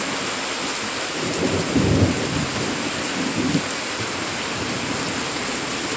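Steady hiss of rain during a thunderstorm, with a low rumble of thunder swelling about one and a half seconds in and a weaker one at about three and a half seconds.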